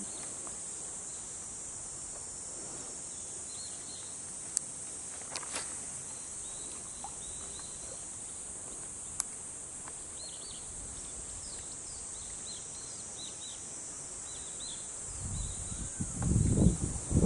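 Insects keep up a steady high-pitched drone, and a bird chirps in short repeated calls through the middle. A few sharp clicks come in between. Near the end a loud low rustling noise builds up.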